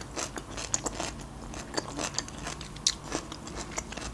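Close-miked chewing: a person eating with scattered small, soft crunches and wet mouth clicks.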